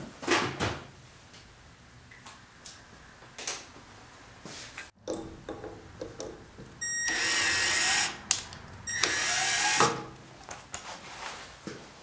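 Cordless drill boring a centre hole through a thin plastic sheet: two short runs of about a second each with a steady motor whine. Handling clicks and knocks come before and between the runs.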